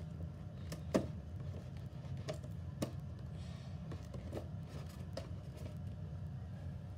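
Scissors cutting through the cardboard packaging of a Pokémon card box: a handful of sharp snips and clicks, the loudest about a second in, over a steady low hum.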